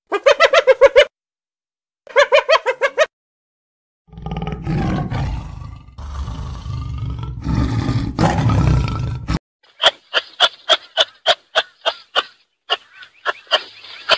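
Spotted hyena giggling in two short bursts of quick, pitched calls, then a tiger growling low and rough for about five seconds. After that comes a quick run of sharp clicks, about three a second.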